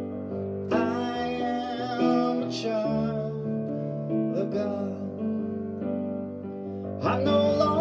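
Music played on a digital keyboard: held chords with a wavering melody line over them, new notes starting about a second in and again near the end.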